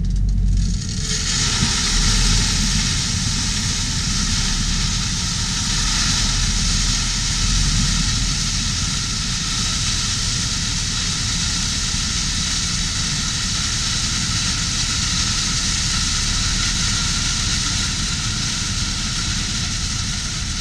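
Dump truck running steadily as it tips a load of rock from its raised bed.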